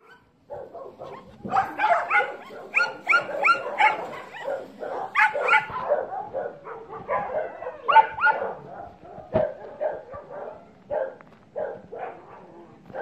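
Dogs barking in quick runs of short barks, loudest and densest in the first half, then sparser barks toward the end.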